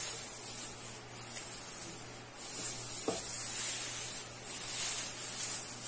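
Plastic tinsel garland rustling and crinkling as it is wound around a wire wreath ring, a dry, hissy rustle that rises and falls with the hand movements.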